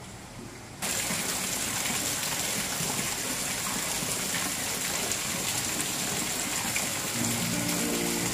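Steady rush of water falling in thin streams down a stone wall, starting abruptly about a second in. Music notes come in faintly near the end.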